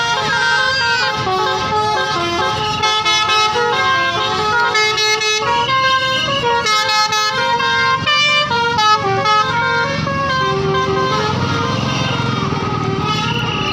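Tourist bus 'telolet' multi-tone horn playing a tune of quick stepped notes, one note after another, over a low rumble.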